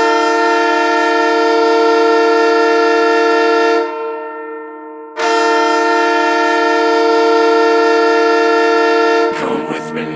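Ice hockey goal horn blowing a held chord of several notes: two long blasts of about four seconds each, the first fading away before the second sounds. The horn stops near the end.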